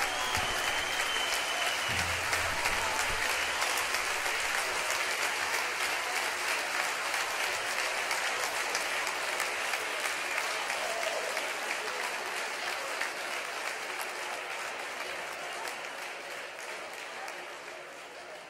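Large concert audience applauding, a dense steady clapping that fades out gradually over the last several seconds.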